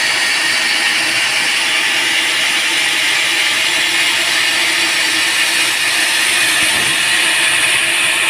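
Sawmill band saw running and cutting teak wood, a loud steady hiss.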